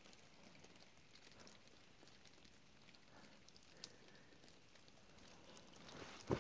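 Near silence on a rocky forest trail: a faint hiss with one light tick about four seconds in and a single footstep thud right at the end.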